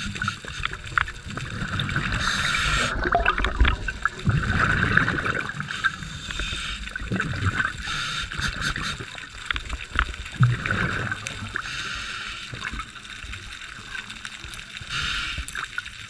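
Scuba diver breathing through a regulator underwater: a hiss with each inhale every few seconds, alternating with the low bubbling rumble of the exhaled air.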